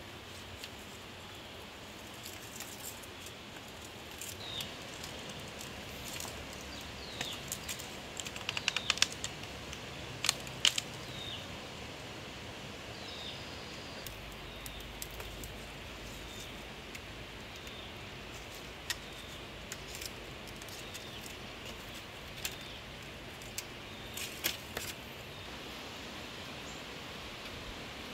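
Split bamboo strips clicking and clattering as they are handled and woven into a mat, with a burst of sharp knocks about a third of the way in, over a steady outdoor hiss.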